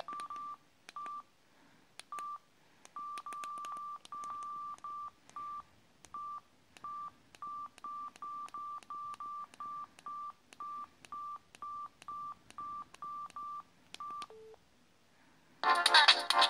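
Samsung SGH-E720 mobile phone keypad beeps: a single high beep with a click at each button press, about thirty presses at an uneven pace, some held longer, then one lower beep. A melody starts near the end.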